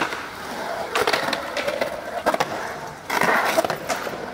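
Skateboard wheels rolling and carving across a smooth concrete bowl, with several sharp knocks from the board; the rolling gets louder for a moment about three seconds in.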